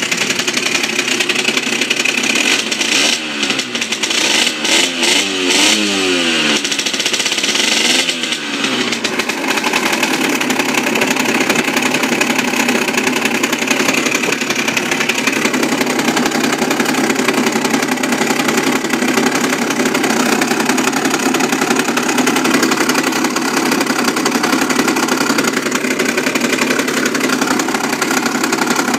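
Aprilia RS50's 50cc two-stroke single-cylinder engine running, revved in several quick blips a few seconds in, then held at a steady speed.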